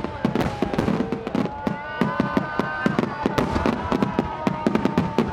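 Aerial fireworks shells bursting in rapid, overlapping bangs and crackles. From about two seconds in, long whistling tones run over the bursts.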